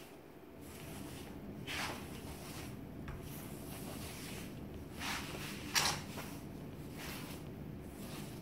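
Damp microfiber polishing sponge wiping across freshly grouted porcelain tile to lift the grout haze: a series of separate swishing strokes, the loudest about six seconds in.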